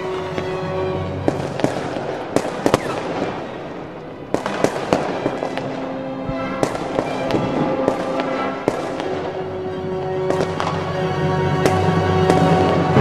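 Background music with steady held notes, overlaid by fireworks exploding in many sharp, irregular bangs and crackles, the loudest near the end.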